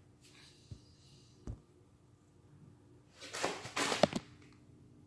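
Handling of packaged parts: two soft low thumps, then a burst of rustling with a sharp click, the loudest sound, about four seconds in.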